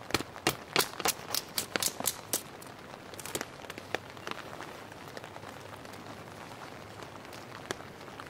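Small hatchet chopping down along an upright stick of wood to shave off kindling: about ten quick, sharp chops in the first two and a half seconds, then a few lighter knocks. A steady hiss of rain runs underneath.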